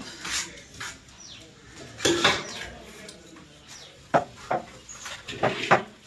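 Hard, clinking knocks as ceramic tiles are tapped and set into place on the wall, with a louder half-second scraping noise about two seconds in and a run of quick sharp taps in the second half.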